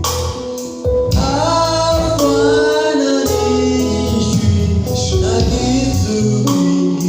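Gospel worship song: singing over instrumental backing.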